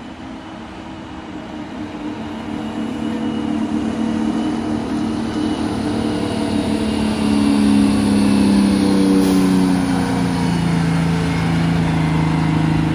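Diesel engine of a 1983 Silver Eagle coach pulling hard up a steep gravel hill, growing louder as it comes closer. In the second half the engine note sinks steadily as it labours and loses speed on the climb, the power loss that turns out to be a failed turbocharger.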